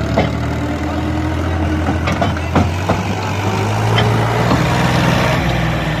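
Tractor's diesel engine running steadily under load while pulling a loaded trolley, with a few sharp metallic knocks in the first few seconds.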